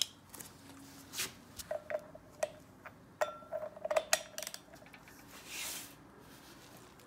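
Hand tools clicking and clinking on metal while the flywheel bolts of a Saab B207 engine are tightened, several strikes leaving a short metallic ring. A brief soft rustle about five and a half seconds in.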